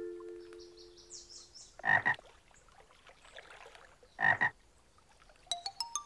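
Cartoon frog croaking twice, two short loud croaks a little over two seconds apart. Ringing mallet-percussion notes die away at the start, and light plinking notes come in near the end.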